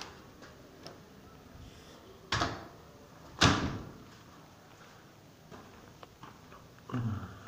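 A door banging shut twice, about a second apart, the second bang louder and echoing. Quieter footsteps and knocks on stairs follow, with a heavier thud near the end.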